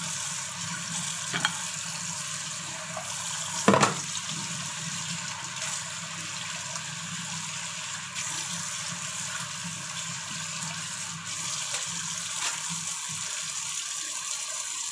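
Tap water running steadily into a kitchen sink, with one sharp clatter about four seconds in.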